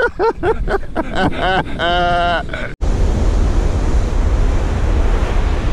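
Voices for nearly three seconds, then a sudden cut to ocean surf breaking on the beach, with wind rumbling on the microphone.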